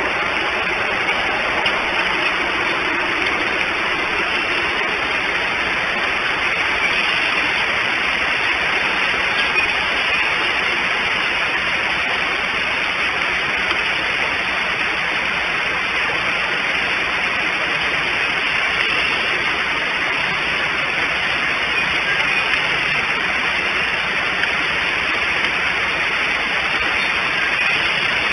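Steady, even outdoor hiss with no distinct events; no eagle calls stand out.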